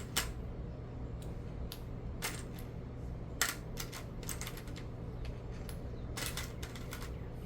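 Light plastic clicks and clatters of Lego pieces being handled, picked through and pressed together, in scattered taps with denser runs of clicks about halfway through and again near the end.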